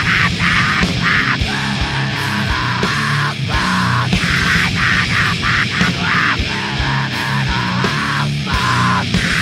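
Loud heavy rock music with a steady drum beat and a sustained bass line.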